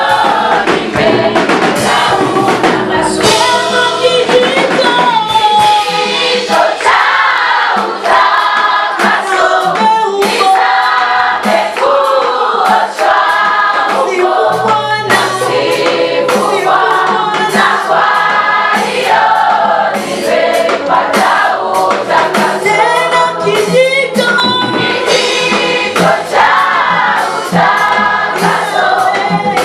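Choir singing a gospel song in full voice.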